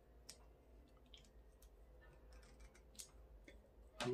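Faint, scattered small clicks and taps, with a sharper click near the end: the plastic housing and terminal screws of a small inline toggle switch being handled while lamp-cord wires are fitted to its terminals.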